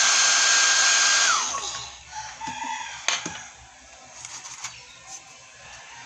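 Small electric blower running with a rush of air and a steady motor whine, switched off about a second and a half in so the whine falls away. Then comes a sharp click about three seconds in and a few faint knocks.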